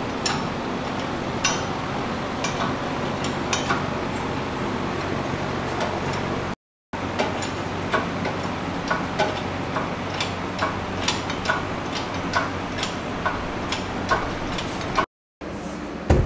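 Scattered sharp metallic clicks and clinks, roughly one or two a second, over a steady low hum, from work fitting an engine into a car. The sound cuts out briefly twice.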